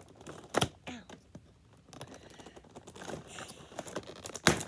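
Fingers tapping and clicking on the toy's cardboard and plastic packaging: a run of light ticks, with two louder knocks, one about half a second in and one near the end.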